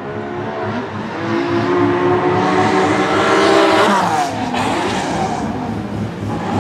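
Supercharged BMW M3 E92 drift car's V8 engine revving hard as the car drifts past, with tyre squeal building to a peak about three and a half seconds in. Just after four seconds the engine note drops sharply as it goes by, then it keeps running on.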